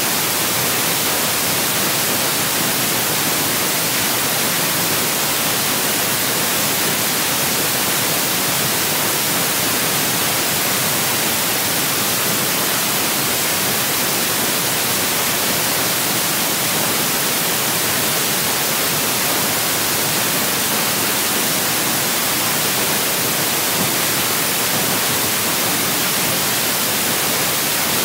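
Steady, loud hiss of static, even throughout, with no other sound over it.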